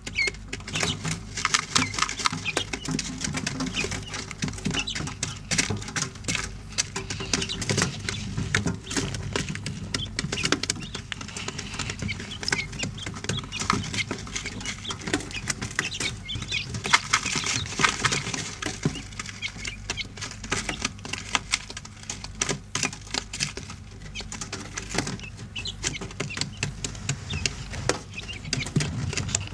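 Quail chicks pecking and scratching in coarse brooder litter: many small, quick clicks and rustles, over a low steady hum.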